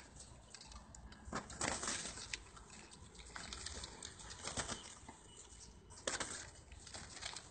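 Pigeons in a wire loft flapping their wings in several short bursts.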